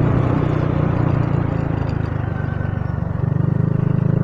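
Motorcycle engine and aftermarket power-pipe exhaust while riding: a rapid, even firing pulse at low, steady revs that picks up and gets louder about three seconds in.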